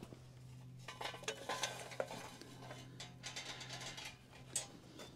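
Lit charcoal briquettes poured from a metal chimney starter into a smoker's charcoal basket, tumbling and clattering in a run of light clinks and knocks that starts about a second in, with a sharper knock near the end.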